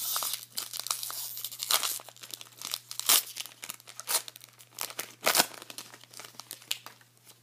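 Foil trading-card booster-pack wrapper being torn open and crinkled by hand. A dense crinkle at first gives way to a series of sharp crackles, the loudest about three and five seconds in, then fainter rustling.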